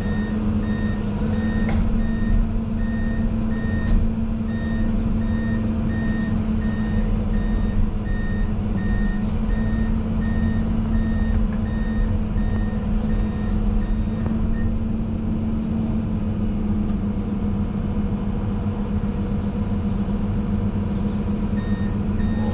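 Excavator's diesel engine running steadily, heard from inside the cab, with its travel alarm beeping about one and a half times a second as the machine tracks. The beeping stops about two-thirds of the way through and starts again near the end.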